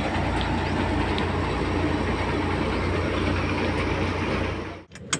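Tractor-driven threshing machine running steadily: the tractor engine's low hum under the steady rushing whir of the thresher. The sound cuts off suddenly near the end.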